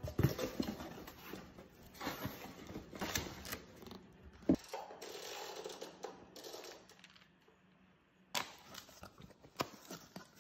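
Cardboard box being handled and opened by hand: flaps scraping and crumpled packing paper rustling, broken by sharp taps and clicks. The loudest tap comes about four and a half seconds in, and a few crisp clicks come near the end.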